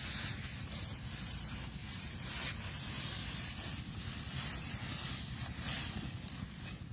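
Steady hissing noise with scattered soft rustles and knocks.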